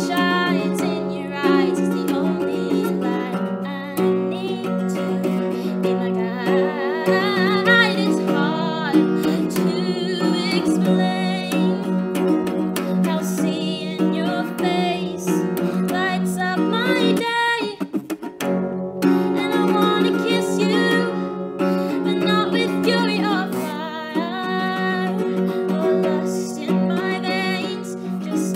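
A woman singing while playing an acoustic guitar, a live song with plucked and strummed chords under the voice, with a short break in the music about two thirds of the way through.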